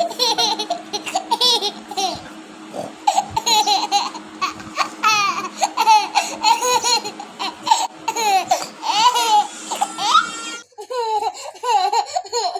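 Baby laughing in strings of giggles and squeals with short pauses between bouts. A steady low hum sits under the laughter until about ten and a half seconds in, where the sound cuts abruptly to another recording of baby laughter.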